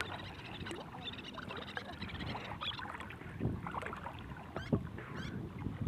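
Water sloshing and lapping as people wade and drag a fishing net through a river, with small splashes and a few short, high chirps in the latter half.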